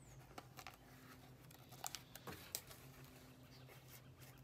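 Faint scattered clicks and rustles of fingers pressing and tearing painter's tape along the seam of a helmet shell, over a low steady hum.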